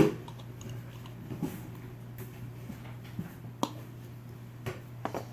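Scattered faint clicks and taps of small plastic toy pieces being handled as an assembled toy figure is fitted onto its stand, over a steady low hum.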